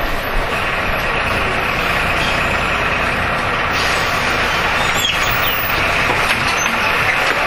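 Jelcz M121M city bus heard from inside the passenger cabin: its engine running with steady mechanical and road noise. A higher hiss joins about four seconds in.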